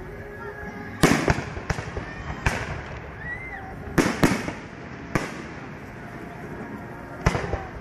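Aerial fireworks shells bursting overhead: about eight sharp bangs at irregular intervals, some in quick pairs, each with a short echoing tail.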